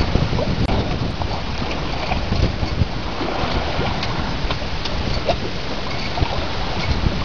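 Wind buffeting the microphone on a small boat under way, with water rushing and splashing along the hull.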